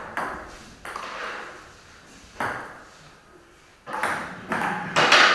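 Table-tennis ball clicking against paddles and the table during a rally, about six sharp knocks at an uneven pace with a pause mid-way, each trailing off in the hall's echo.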